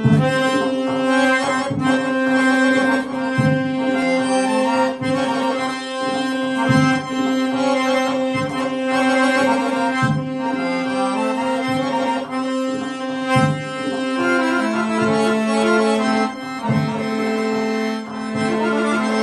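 Weltmeister piano accordion playing a slow, ornamented mugham-style melody over a long-held low note. The held low note steps down to a lower pitch about 15 seconds in.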